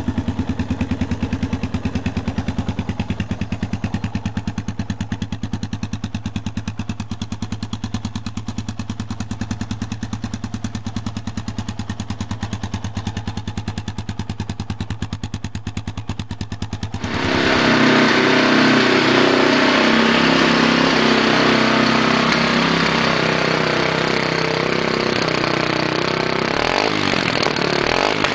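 Yamaha Tricker XG250's single-cylinder engine idling with an even, rapid beat. About two-thirds of the way through it switches abruptly to louder running at higher revs, the pitch stepping up and down.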